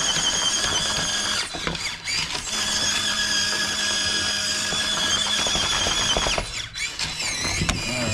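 FMS FCX18 K10 RC crawler's electric drivetrain whining steadily at a high pitch as the truck crawls on a steep rock face. The whine stops about six and a half seconds in and comes back near the end with a wavering pitch.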